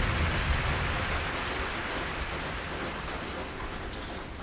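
Steady rain falling, slowly fading out.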